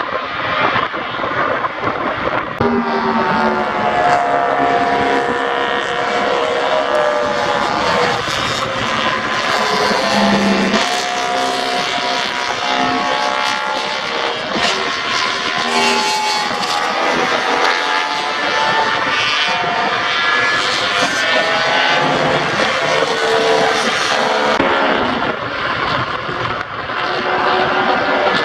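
Several pre-1972 racing motorcycle engines running hard on track, their notes overlapping and rising and falling in pitch as the bikes accelerate, change gear and ease off. The sound is loud and continuous throughout.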